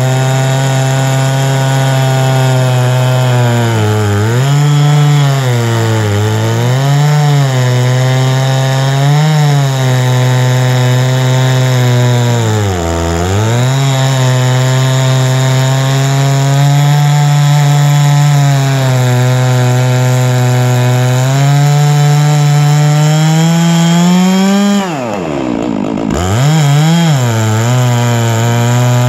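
Huztl MS660-clone two-stroke chainsaw running flat out as it mills a big cherry log lengthwise, the engine note sagging briefly under load several times. About 25 seconds in, the revs fall hard as the saw bogs in the cut, then climb back to full speed.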